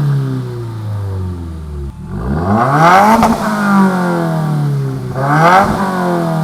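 2015 Subaru WRX turbocharged 2.0-litre flat-four revved in place through the stock exhaust with muffler deletes. It falls back from a rev at first, then climbs and drops again about two seconds in, and gives a second, quicker blip near the end.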